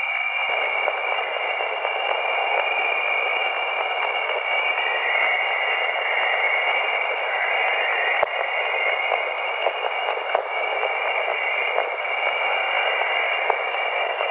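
Radio static: a steady, band-limited hiss with thin whistling tones near the top of the band and a wavering tone below them, sprinkled with faint crackles. It is offered as a sound recorded from space.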